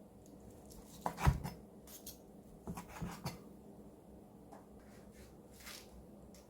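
Kitchen utensils knocking and clinking against cookware a few times, the loudest knock about a second in, with a short scrape near the end.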